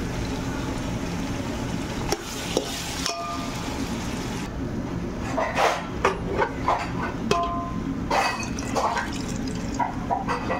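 Spoon stirring meat and vegetable pieces in masala in a metal pot, with a few clicks early and then a run of short scrapes and clinks against the pot from about five seconds in, over a steady hiss of cooking.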